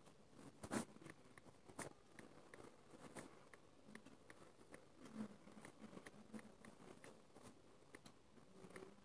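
Faint, irregular clicks of typing on a smartphone's touchscreen keyboard, several taps a second, with two louder clicks about a second in and just under two seconds in.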